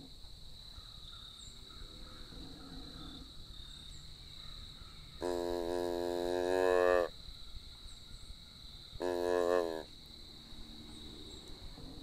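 Mouth-blown deer grunt call, tube type, imitating a deer's call. A few soft calls come first, then a loud drawn-out call of nearly two seconds around the middle and a shorter one of under a second later on.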